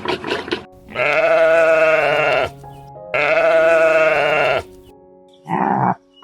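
A farm animal bleating: two long, wavering bleats, then a short, rougher call near the end, over background music.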